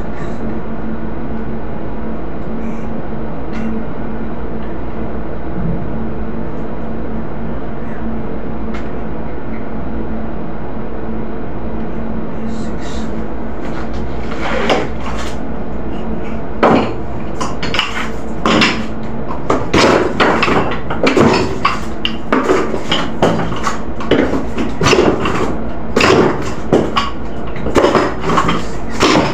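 Hand tools clattering and knocking against each other and the concrete floor as they are picked up and sorted, starting about halfway and growing into quick, irregular knocks. A steady hum with a constant low tone runs underneath.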